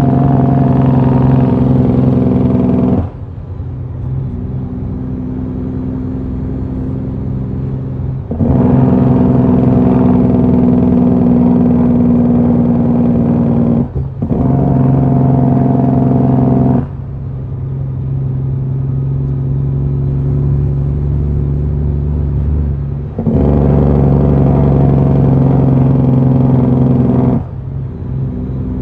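Western Star truck's diesel engine heard from inside the cab, running loud under load in three long spells, with a short dip in the middle of the second, and dropping to a quieter, lower drone between them.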